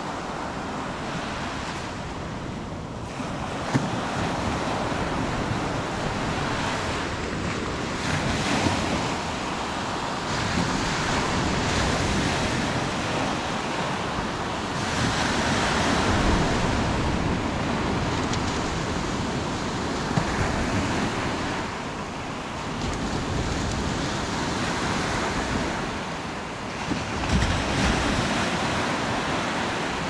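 Sea surf breaking and washing up on the shore in swells that rise and ease every few seconds, with wind rumbling on the microphone.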